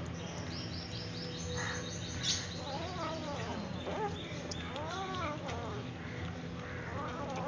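Kittens mewing a few times over a steady low hum, each call rising and falling in pitch, about three, five and seven seconds in. A quick run of high bird chirps comes in the first couple of seconds.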